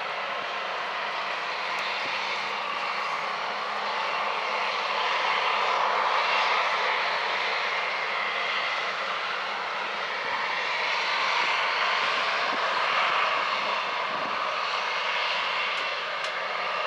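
Harvest machinery running steadily, a broad rushing drone with a faint low hum underneath, swelling a little twice and easing off.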